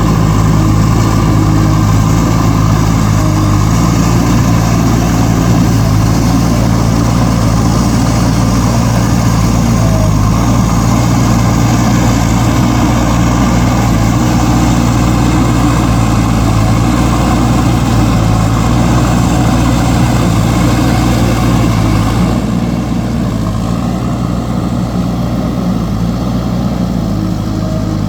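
Diesel engine of a JCB backhoe loader running steadily under load, its pitch shifting slightly now and then; it gets a little quieter about three quarters of the way through.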